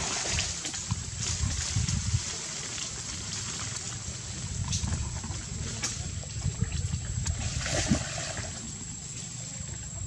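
Water splashing and lapping as young monkeys swim and dive in a shallow pond, with scattered small splashes and a louder splash about 8 seconds in, over a steady low rumble.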